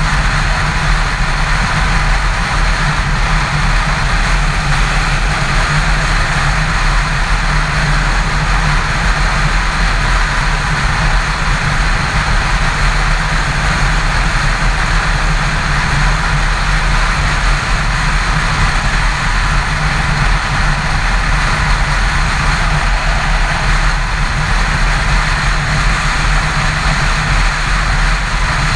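Yamaha FZ6's inline-four engine running steadily at highway cruising speed, mixed with constant wind rush over the microphone: a low drone under an even hiss, with no change in speed or gear.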